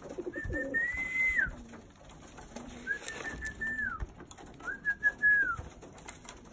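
Three whistled notes, each held level for about a second and then dropping off, while racing pigeons coo and move about in the loft, with a few sharp knocks. The whistling is the kind a fancier uses to call his pigeons to feed.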